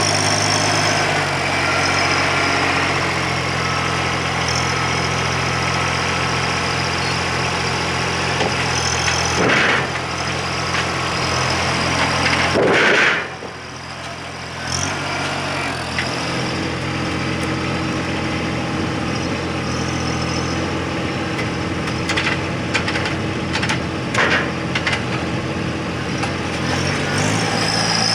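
An engine running steadily. Its pitch shifts a few times, and it dips briefly about halfway through. A few short knocks come in the later part.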